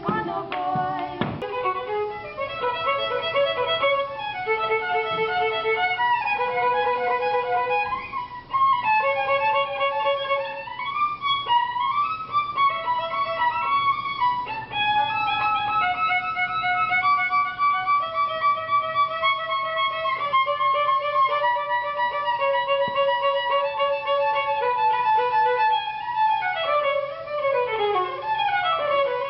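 A violin playing a slow melody of held notes, with quick falling runs near the end.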